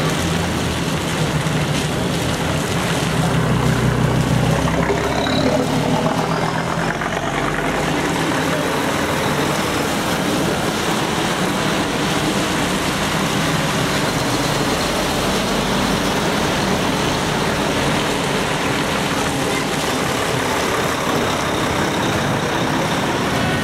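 Heavy diesel trucks driving slowly past on wet tarmac: a low engine note for roughly the first six seconds, then a steady mix of engine noise and wet tyre hiss.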